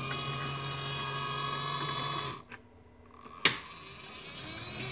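Small electric motor of a homemade brass annealer running with a steady whine. It cuts out a little before halfway, a single click follows, and the whine builds back near the end.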